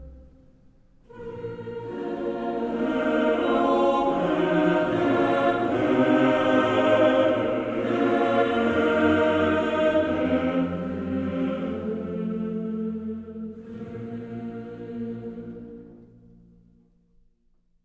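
Background music of slow, sustained choir-like chords. It swells in about a second in and fades out near the end.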